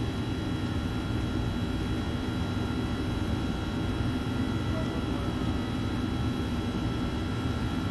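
Steady machinery hum and fan noise with a low rumble and several faint, steady high whining tones.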